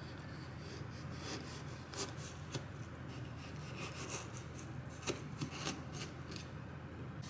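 Small cleaver slicing a lime on a cutting board: the blade cutting through the rind and knocking the board in a run of irregular clicks, the sharpest about two and five seconds in.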